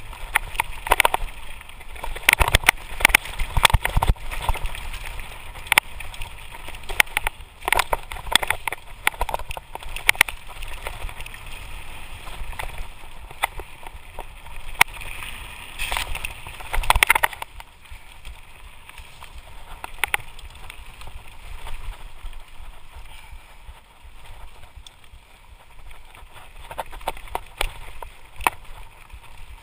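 Lapierre Spicy full-suspension mountain bike descending a rocky trail at speed: tyres rumbling and crunching over stones, with frequent knocks and rattles from the bike. The knocks are densest over the first half and thin out from a little past halfway.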